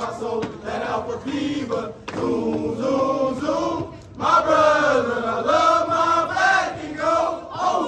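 A group of fraternity new members chanting in unison at their probate, in drawn-out, half-sung phrases, louder from about four seconds in.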